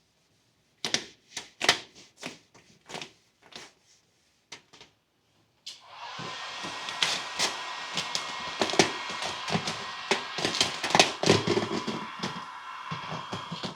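Several knocks and clicks, then a small electric motor starts about six seconds in and runs with a steady whir and a held tone, with knocks and clatter over it, stopping near the end.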